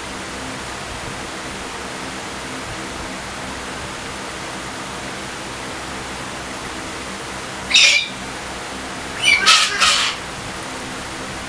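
Galahs giving harsh, rasping screeches: a single short screech about eight seconds in, then a quick run of three more about a second later, over a steady background hiss.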